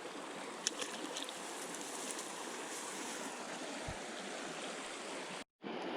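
Steady rushing of the Blacksmith Fork River's flowing water, with a few faint clicks about a second in. The sound drops out for a moment near the end.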